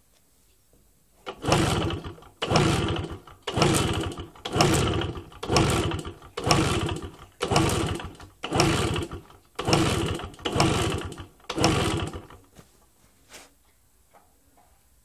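Simson S50 moped's 50 cc single-cylinder two-stroke engine being kick-started: about ten kicks, roughly one a second, each turning the engine over with a rough burst that dies away. The engine does not catch and stay running.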